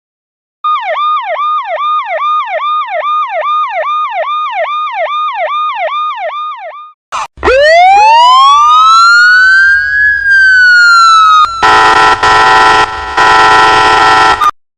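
Emergency vehicle sirens in sequence. First a fast siren repeating a falling sweep about three times a second for some six seconds. After a short break comes a slow wail that rises and falls once, and then a loud steady horn blare for about three seconds, broken briefly twice.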